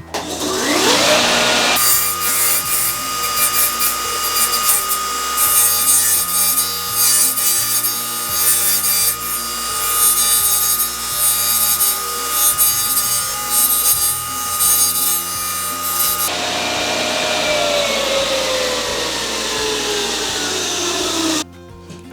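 Table saw starting up with a rising whine, then the blade cutting wood for about fourteen seconds, with a steady whine under the cutting noise: a large circle being cut. Then the saw is switched off and winds down with a falling whine that cuts off near the end.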